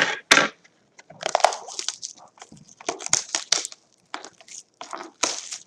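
Plastic shrink wrap from a trading-card hobby box crinkling and being crushed in the hand in a run of irregular crackles, as the box is unwrapped.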